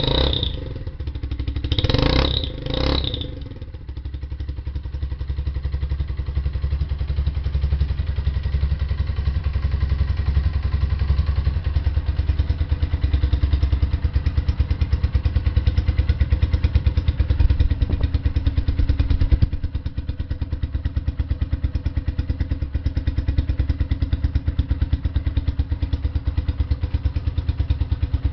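Suzuki Yes 125's single-cylinder engine idling through a Roncar ML Competition 45 cm aftermarket exhaust, with a steady rapid exhaust pulse. A few short louder bursts come in the first three seconds.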